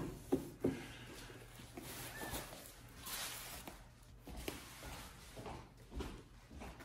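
Soft rustling and scattered light taps as a baby monkey scrambles over puppy pads in a plastic tub among kittens, with a brief faint squeak about two seconds in.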